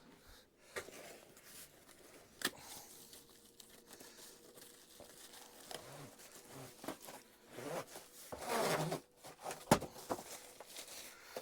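Rustling and crinkling handling noise from work in a loft, with scattered sharp clicks and knocks. The rustling gets louder for about a second some eight seconds in.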